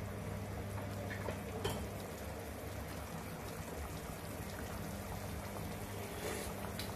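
Beef stew in soy sauce simmering in a pot on a gas burner: a steady hiss with small bubbles popping, over a low steady hum, with a few faint clicks.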